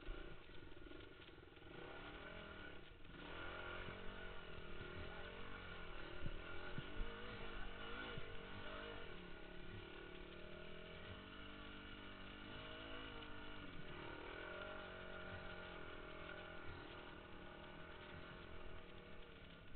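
Kawasaki trail bike engine running under load as it climbs a rutted dirt lane, its revs rising and falling with the throttle.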